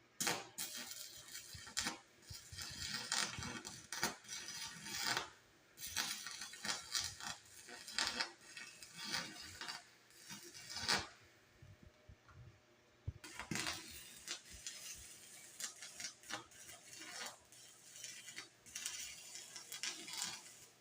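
Irregular metallic clinking and clattering in spells, with short pauses about six and twelve seconds in.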